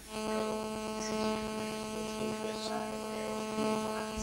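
Steady electrical hum with a stack of evenly spaced overtones, cutting in suddenly at the start.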